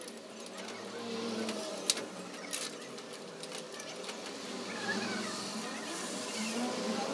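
A few sharp metal clicks and clinks as the parts of a turbo wastegate actuator are handled and fitted together by hand, the loudest about two seconds in.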